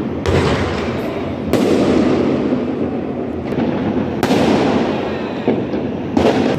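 Fireworks going off: four sudden bangs, each with a long fading tail, about 0.3, 1.5, 4.2 and 6.1 seconds in.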